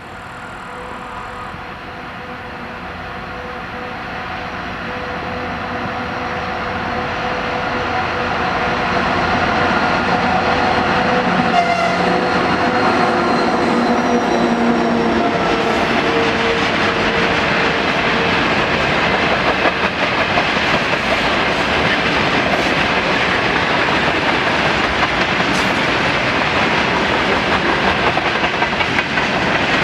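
Freight train hauled by a 2TE116 two-section diesel locomotive approaching and passing. It grows louder over the first several seconds, with the locomotive's engine drone fading out about halfway through. After that comes the steady rumble and clatter of freight wagons rolling by.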